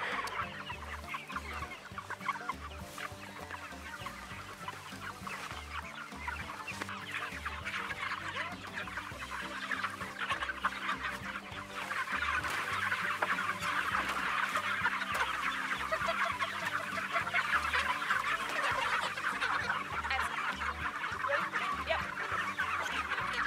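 A flock of broiler chickens clucking and peeping, a dense stream of short calls that grows louder about halfway through.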